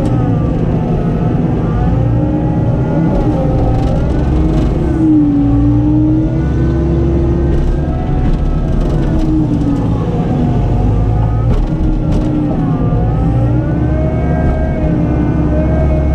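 Skid steer loader's engine running hard, its pitch rising and falling as the load changes, with a few faint knocks.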